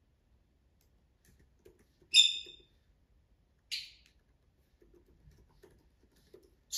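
A conure giving two short, sharp chirping calls about a second and a half apart: an anxious call for attention.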